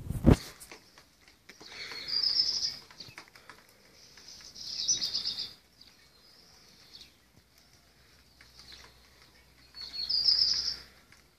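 A small bird singing three short, high trilling phrases, each about a second long, several seconds apart. A brief knock sounds right at the start.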